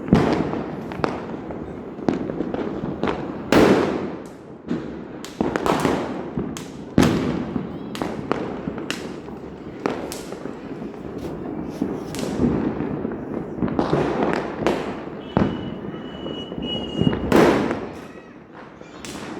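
Firecrackers going off in quick, irregular succession: many sharp bangs, each with an echoing tail, some much louder than others. A brief high whistle sounds among them about three-quarters of the way through.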